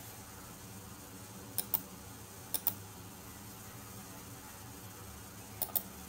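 Computer mouse clicking: three quick pairs of sharp clicks, spaced one to three seconds apart, over a steady low background hum.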